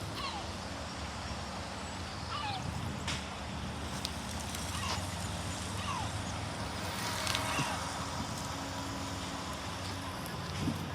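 Seagulls calling: several short falling calls scattered through, over a steady low hum.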